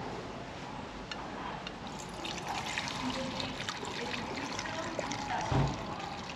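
Rakomelo being poured through a strainer into a bottle: a trickling, splashing stream of liquid that picks up about two seconds in, with one dull knock a little before the end.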